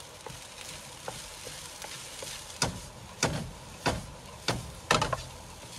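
Rice frying in a nonstick pan with a steady sizzle, stirred with a wooden spoon. From about halfway through come half a dozen sharp knocks and scrapes of the spoon and pan, the loudest near the end.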